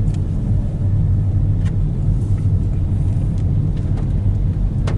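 Car driving, heard from inside the cabin: a steady low road-and-engine rumble, with a few faint clicks.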